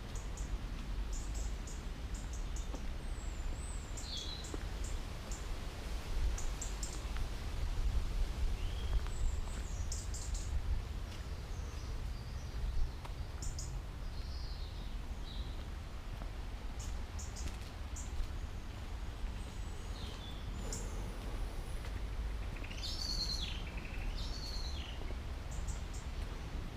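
Wild birds calling over a steady low rumble: scattered short chirps and quick runs of high ticking notes, busiest about a third of the way in and again near the end.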